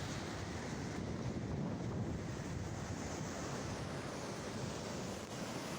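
Ocean surf washing onto the beach, with wind buffeting the microphone: a steady rushing noise.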